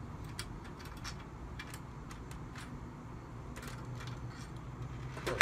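Hand screwdriver driving a screw into a steel cabinet panel: faint, irregular small clicks and ticks as the screw turns, with a sharper click at the very end.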